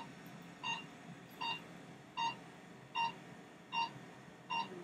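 Secret RF fractional microneedling system beeping with each radio-frequency pulse as the handpiece is pressed along the neck: a short, high beep about every three-quarters of a second, seven in all.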